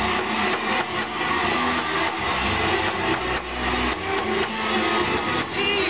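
Loud, dense party din in a small room: rapid clattering and scraping strokes over a steady low hum.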